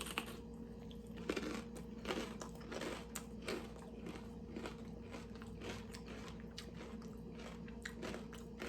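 Close-up chewing and crunching of a jalapeño stuffed with cream cheese and crunchy Takis chips, about one chew every two-thirds of a second. The crunches are loudest in the first few seconds and grow fainter.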